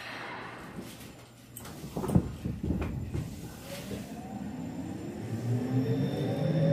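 Tokyo Metro 07 series electric train pulling away from a station: a few knocks about two seconds in as it starts to move, then the VVVF inverter and traction motors whining in several tones that climb steadily in pitch as it accelerates.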